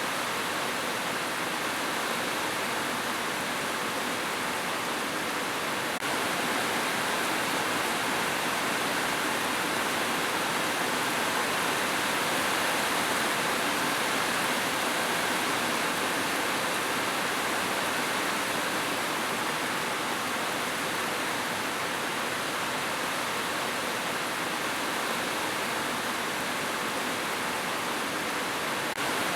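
Steady rush of falling or flowing water, an even unbroken hiss that grows a little louder about six seconds in.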